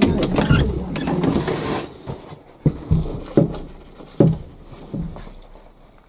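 Footsteps on a littered floor, a couple of seconds of crunching and rustling, then separate steps a little under a second apart, growing fainter.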